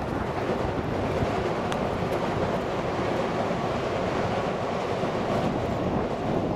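Steady rumble of a passing train.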